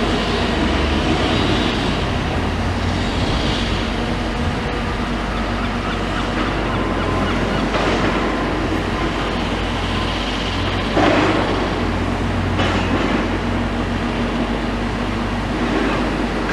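Heavy demolition machinery's diesel engine running steadily, with a couple of short knocks about eleven and twelve and a half seconds in.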